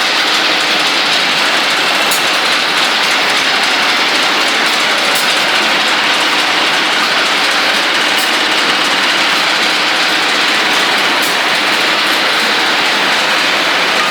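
Servo-controlled CNC pipe cutting lathe running with a loud, steady mechanical noise. A faint sharp tick comes about every three seconds.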